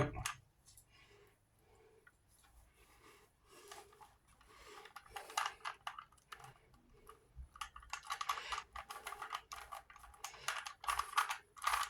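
Rubik's Cube being twisted by hand: quick runs of plastic clicks and clacks as its layers turn. Nearly silent for the first few seconds, then the turning starts and grows busier toward the end.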